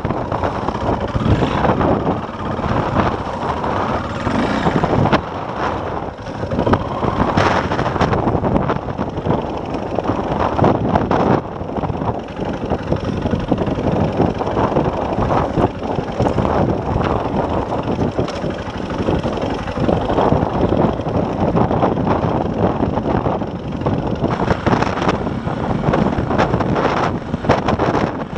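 KTM four-stroke single-cylinder enduro motorcycle engine running while the bike rides over rough, bumpy ground. Wind buffets the microphone, and there are frequent short knocks and rattles.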